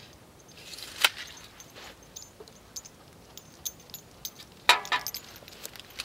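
Steel tape measure in use: its blade rattles and snaps with a sharp metallic click about a second in and a louder clatter near five seconds, with light metallic clicks and clinks between.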